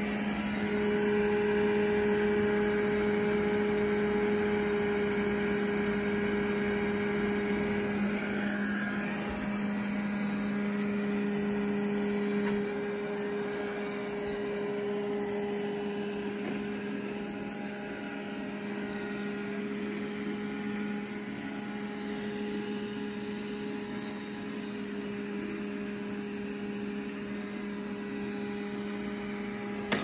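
Roborock S5 robot vacuum running on carpet: a steady motor hum with constant tones from its suction fan and brushes, easing a little about halfway through as it moves along.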